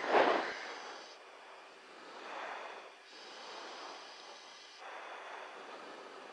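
Hiss of an open intercom or radio channel with breath noise into a headset microphone, after a short loud burst at the very start. The hiss shifts in tone a few times.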